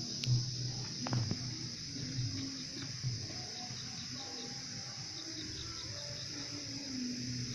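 Insects, crickets among them, making a steady high shrill drone, with a cricket chirping in a regular rapid series from a couple of seconds in. A faint low murmur sits underneath.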